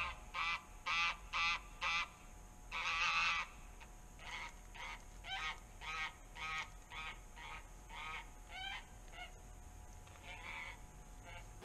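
Geese honking, a long series of short calls with a brief run of quicker chatter about three seconds in.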